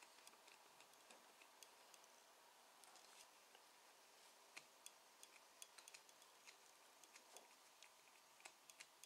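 Near silence with faint, irregular little clicks and ticks from the fully mechanical VDO speedometer of a Porsche 944 being turned by hand at its drive to test whether the freshly oiled, previously seized axle now turns. The clicks come a few a second, somewhat more often in the second half.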